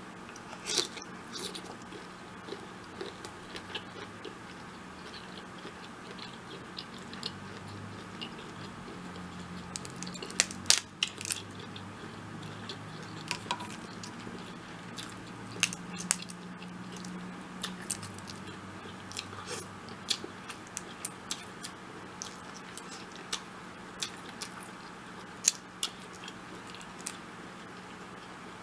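Close-up eating sounds of a seafood boil in sauce: wet chewing, lip smacks and many small sharp clicks, with a few louder cracks about ten seconds in, over a faint steady low hum.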